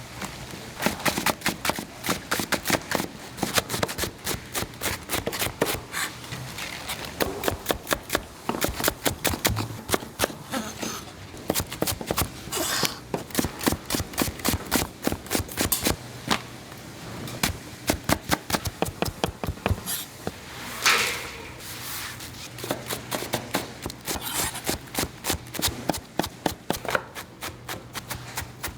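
Commercial kitchen work: rapid, irregular clicks and knocks of utensils and containers being handled, over a steady low machine hum.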